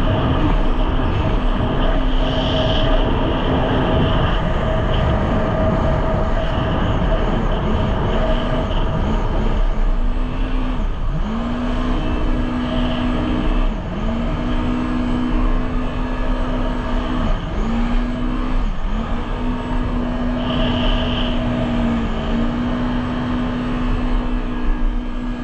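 Jet ski engine running steadily at speed under a heavy rush of wind and water. From about halfway through, its pitch dips briefly every second or two.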